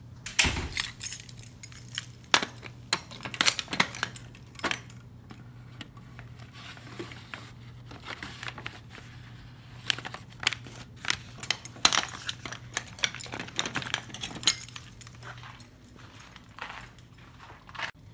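Keys jangling and clicking at the lock of an aluminium post office box, the small metal door opening, and envelopes and a padded mailer rustling as they are pulled out: a string of sharp metallic clicks and paper rustles over a steady low hum.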